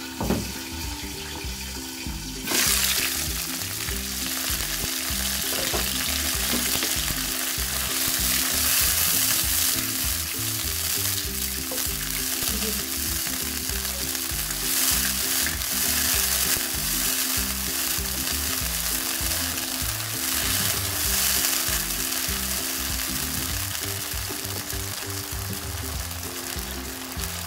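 Browned onions sizzling in oil and a little water in a wok, under a glass lid at first and then uncovered and stirred with a spatula. The sizzle turns sharply louder about two and a half seconds in.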